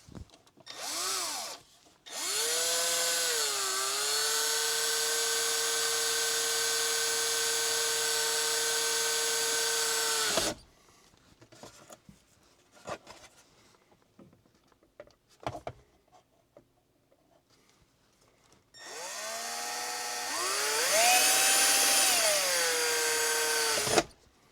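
Power drill drilling mounting holes with a small bit: a short trigger blip, a steady run of about eight seconds, a pause with a few small clicks, then a second run of about five seconds whose pitch rises and then falls before it stops.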